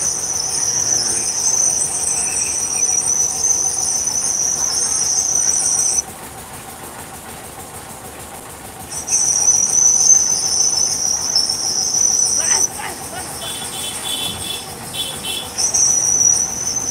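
Insects trilling loud and high-pitched, a steady cricket-like song that stops abruptly twice for a few seconds and starts again.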